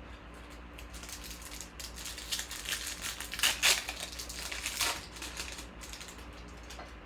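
Crinkling and rustling of a foil trading-card pack and the cards being handled, a dense run of crackles that is loudest about halfway through.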